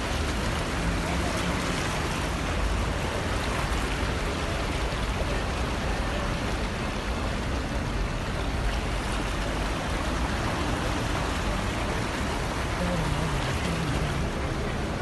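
Steady rush of floodwater after heavy rain, an even wash of water noise.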